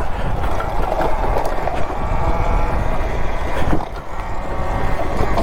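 Talaria Sting electric dirt bike being ridden along a dirt trail: a steady low rumble of wind and tyres on the mic with a faint motor whine, and a few sharp knocks from the bike.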